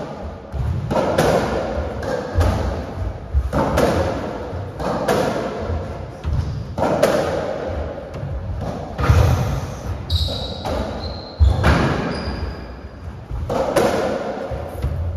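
Racketball rally: the rubber ball struck by rackets and thudding off the walls and floor of a squash court about once a second, ringing around the enclosed court. A few short high squeaks come about two-thirds of the way through.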